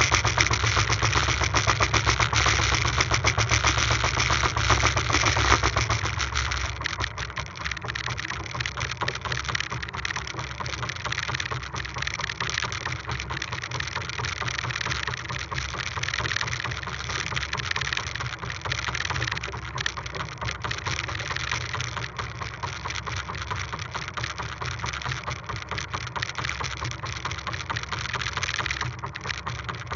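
Small fishing boat's motor running at speed, then throttled back about six seconds in to a quieter, steady run.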